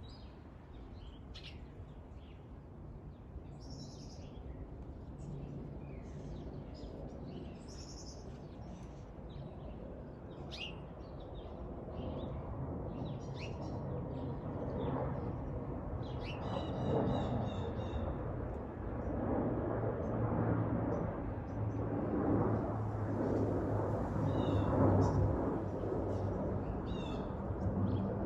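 Small birds chirping in many short high calls, over a low steady rumble that grows louder through the second half.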